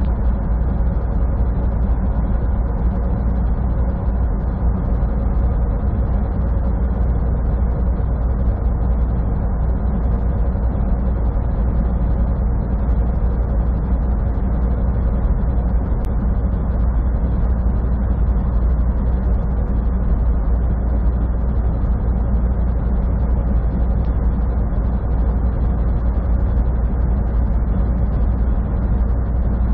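Inside a semi truck's cab cruising at highway speed: a steady low drone of the diesel engine and road noise, with one brief click about sixteen seconds in.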